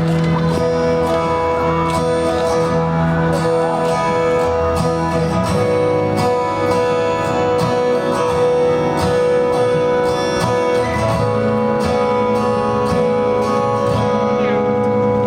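Live band playing the instrumental introduction to a song, with sustained notes and no singing yet.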